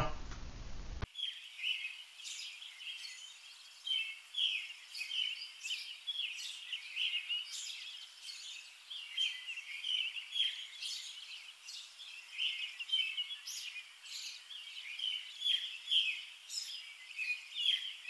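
Small birds chirping continuously, many short overlapping calls, thin-sounding with no low end, starting about a second in after a moment of faint room noise.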